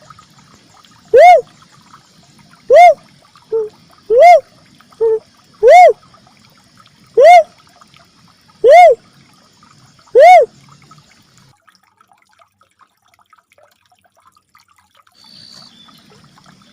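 Uncal merah cuckoo-dove calling: seven single low, hollow 'wup' notes, one every second and a half, with two fainter short notes between them, then stopping about ten seconds in. This is a lure call recording played to draw the birds in.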